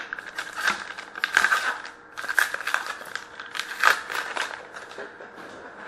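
Hockey trading cards being handled: a quick run of rustles, slides and light snaps as cards are flipped through and set down on the table.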